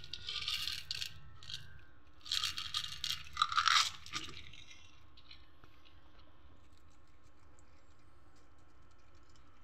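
Loud rustling and rattling of dry cat food being served during the first few seconds. Then a cat eats the kibble off a doormat, a faint run of quick dry crunching clicks.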